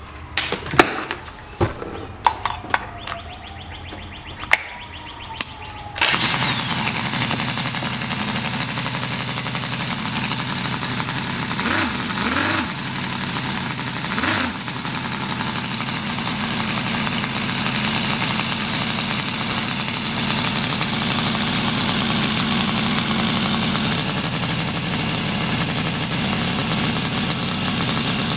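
Scale-model Ford 300 inline-six gasoline engine, its ignition timing and carburation still being adjusted: a few clicks and knocks, then about six seconds in it starts and runs steadily. There are two brief swells in the sound about twelve and fourteen seconds in.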